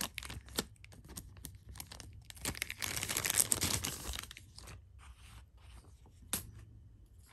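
Packaging rustling and crinkling as a knife is unwrapped from its box, loudest in the middle, with scattered small clicks and taps and one sharp click near the end.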